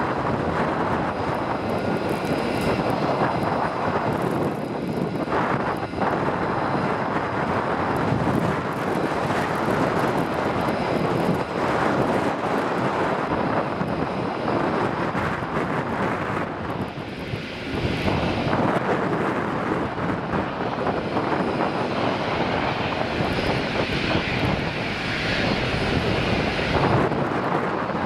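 Airliner engines running on the runway as one steady, dense noise: first an Air New Zealand De Havilland Canada Dash 8-300's turboprops as it rolls out after landing, then, after a cut, a Jetstar Airbus A320-232's jet engines as it lines up for takeoff. The noise dips briefly about two-thirds of the way through.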